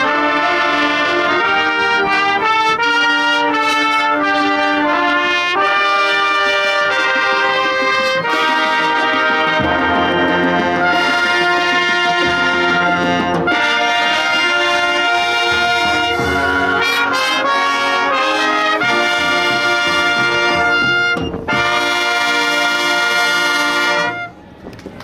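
School wind band playing live: trumpets, trombones and saxophones sounding full chords in a brisk passage. The music breaks off briefly about three-quarters through and then stops sharply on a final chord near the end.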